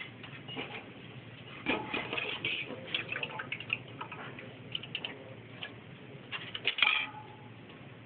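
Metal spoon clinking and scraping against stainless steel mixing bowls as chopped food is stirred and moved between them: a run of irregular knocks and clatters, loudest about two seconds in and again near the end.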